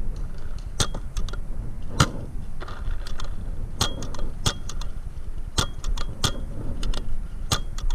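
Paintball markers firing: sharp pops at an irregular pace, several in quick pairs, some with a brief ping after them, over a low steady rumble.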